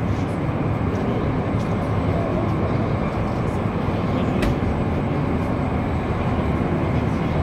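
Steady loud rumbling background noise with no clear pitch, and a single sharp click about four and a half seconds in.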